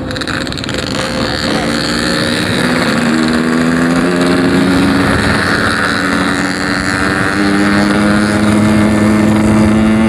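Yamaha RX-King two-stroke single-cylinder engine running under way, its note stepping up in pitch several times and growing louder as it accelerates. The rider finds the low end blubbering and takes the carburettor to be set too rich.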